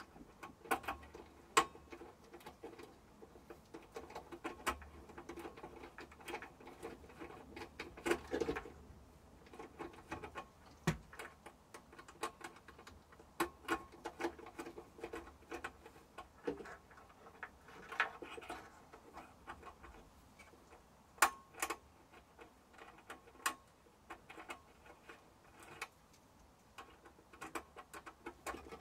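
Irregular small clicks and light taps of tools and metal and plastic parts being handled while working inside a Tower air fryer, some knocks sharper than others.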